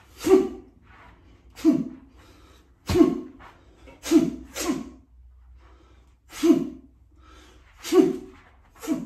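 A man's sharp, forceful exhalations, short voiced bursts, one with each strike of a taijiquan form: eight in all, about one every second or so. One, about three seconds in, comes with a low thud.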